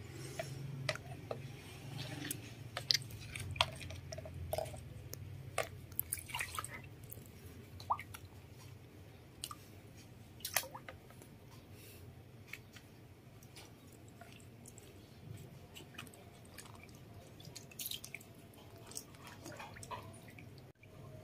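Small splashes and drips of water as a baby monkey paddles in a shallow plastic basin, heard as scattered light clicks and trickles, with a faint low hum in the first few seconds.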